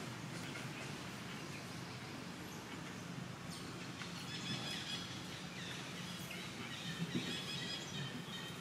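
Outdoor forest ambience: a steady low hum, with high, thin chirping calls coming in about four seconds in and continuing.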